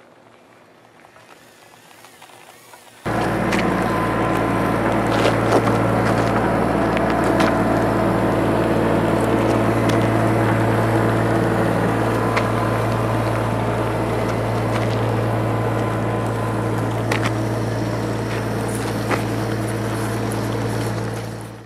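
A vehicle engine running steadily with a low, even hum, cutting in abruptly about three seconds in, with scattered clicks over it.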